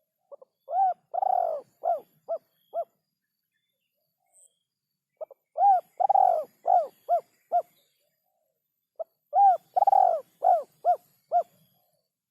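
Spotted dove cooing: three phrases a few seconds apart, each a short note, then a long arching coo, then three or four shorter coos in quick succession.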